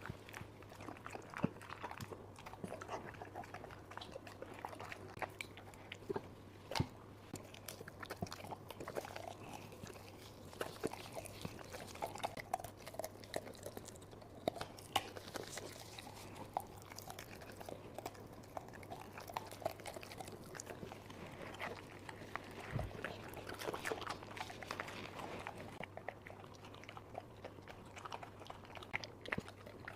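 A dog eating cooked homemade food, with irregular chewing and crunching and sharp clicks throughout.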